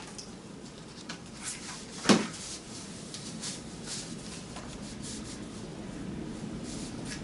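A hand rubbing and smoothing a paper sheet flat, with soft paper rustling and one sharp knock about two seconds in.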